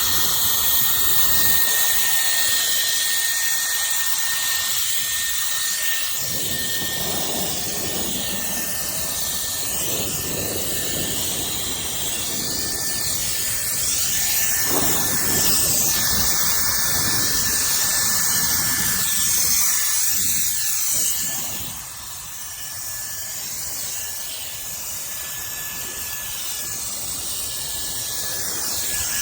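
Cordless electric air duster running: a steady high-pitched motor whine over a strong rush of blown air. It gets quieter about three-quarters of the way through, then slowly builds back.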